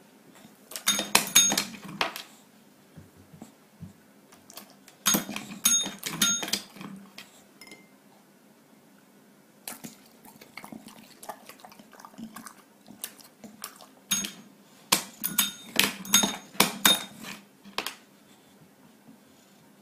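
A tabletop service bell pressed again and again by an English bulldog asking for food, ringing in several bursts of quick dings with pauses between.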